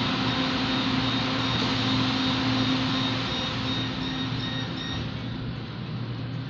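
LRT-2 light-rail train heard from inside the passenger car: a steady low electric hum from the traction equipment and running gear, with a faint rising whine about four seconds in, typical of the train picking up speed.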